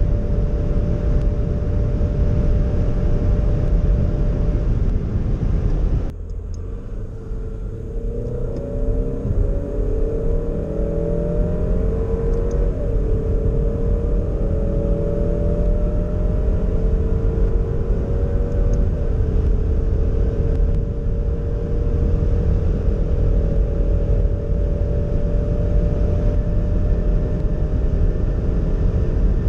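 Alfa Romeo Stelvio 2.0 turbo four-cylinder heard from inside the cabin at full throttle. First it holds a steady engine drone with heavy wind and road noise near its top speed. After an abrupt cut about six seconds in, it pulls hard through the upper gears of its 8-speed automatic, the engine note climbing steadily, with an upshift into sixth gear partway through.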